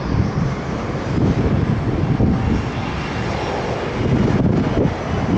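Jet engines of a Boeing 767 airliner: a steady low, noisy rumble that grows a little louder near the end.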